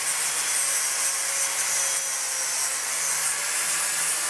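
Handheld power grinder grinding excess ceramic shell off an investment-casting mould to bare the wax beneath: a steady grinding noise with a faint steady motor tone.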